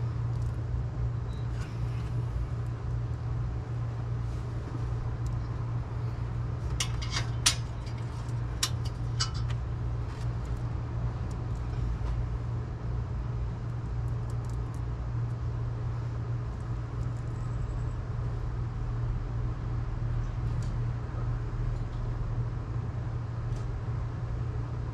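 Steady low hum of a running vehicle, with a few sharp clicks about seven to nine seconds in.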